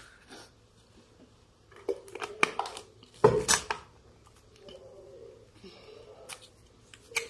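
Small plastic packet and water bottle being handled: scattered crinkles and clicks, with a louder short rustle a little after three seconds in.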